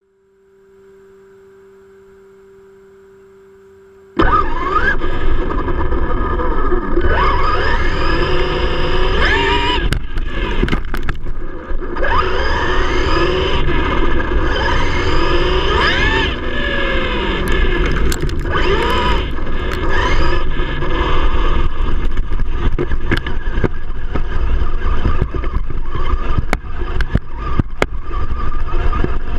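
Electric RC monster truck (Traxxas E-Revo) heard from a camera mounted on the truck: a faint steady hum, then about four seconds in the motor whine comes in loudly and rises and falls in pitch again and again as the truck accelerates and slows, with gear noise, tyres scraping on gravel and wind.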